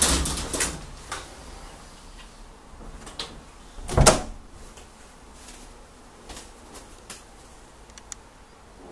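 Mirrored sliding wardrobe door rolling along its track in the first second, then a single loud thump about four seconds in, with a few faint knocks later.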